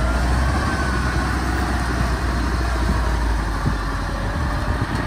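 Engine of a loaded rice-hauling tractor running steadily as it drives along, a constant low hum.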